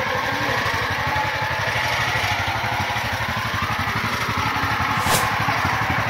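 Small engine of a two-wheel walking tractor (power tiller) running steadily as it is driven along a path, a fast, even chugging.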